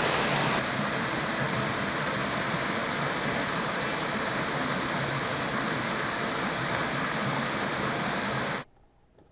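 Water of a small rocky stream rushing over a cascade, a steady hiss. It cuts off abruptly near the end.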